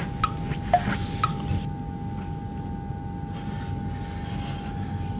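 Steady low rumbling drone of airliner cabin noise with a faint steady hum. A few light percussive music notes fade out in the first second and a half.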